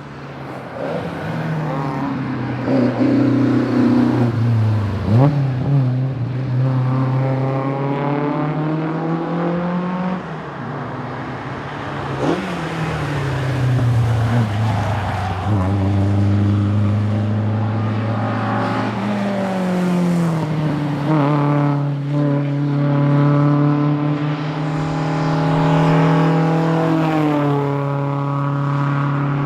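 Fiat 131 rally car's engine pulling hard, its pitch climbing under acceleration and dropping sharply at each gear change, several times over.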